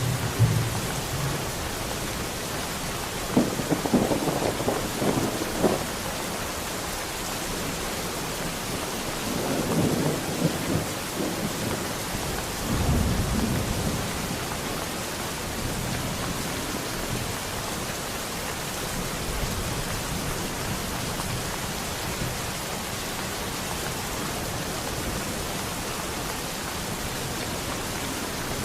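Steady rain with thunder rumbling and crackling three times in the first half, then only the even hiss of the rain.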